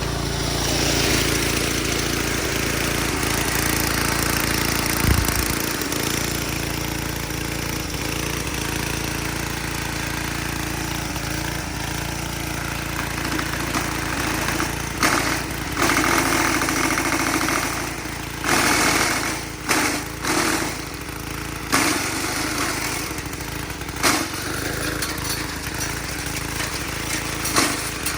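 Small-engine wood chipper running steadily. From about halfway on come a series of loud, short crunching bursts as branches are fed in and chipped.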